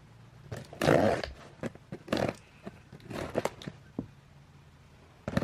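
Delivery parcel packaging being handled and opened: a series of irregular rustles and scrapes, the loudest about a second in.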